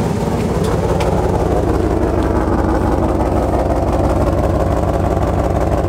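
Dodge Ram 1500's 5.9-litre gasoline V8 idling steadily, heard at its dual exhaust tips with an even low pulse.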